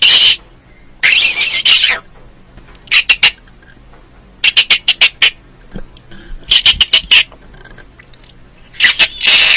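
Squirrel chattering: about six bursts of rapid, sharp chips a second or two apart, with one longer, noisier call about a second in.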